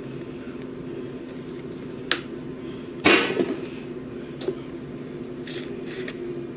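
Seasoning containers handled on a kitchen counter: a click about two seconds in, a louder knock about three seconds in as a container is put down, then a light tap and some rustling, over a steady low hum.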